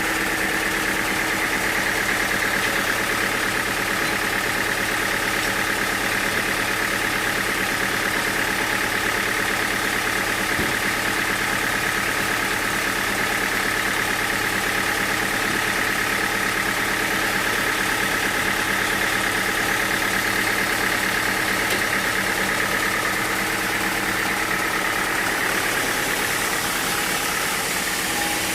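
Sawmill machinery running steadily: a constant engine hum with a high, even whine over it.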